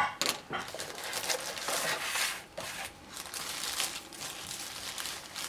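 Thin protective wrapping crinkling and rustling in irregular bursts as a small dashcam is pulled out of it by hand, after a light knock at the start.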